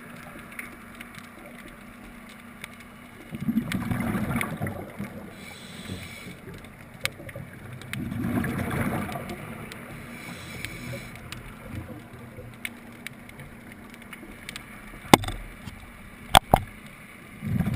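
Scuba diver breathing out through a regulator underwater: two long bursts of rushing bubbles about five seconds apart, with another starting near the end, over a steady underwater hiss. A few sharp clicks come between the last two bursts.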